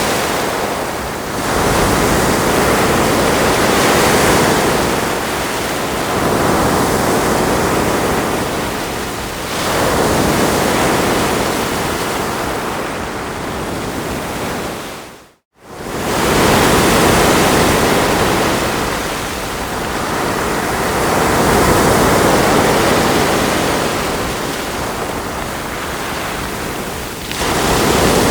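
Ocean waves breaking and washing up the shore, the surf swelling and ebbing every few seconds. Just past halfway it fades briefly to silence, then swells back in.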